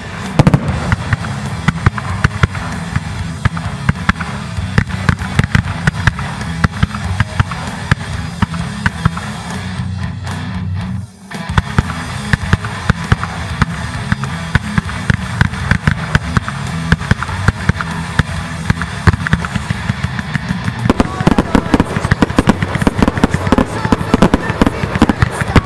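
Fireworks display: nearly continuous bangs and crackling from bursting aerial shells, with music playing underneath. There is a brief lull about eleven seconds in, and the crackling grows denser and louder near the end.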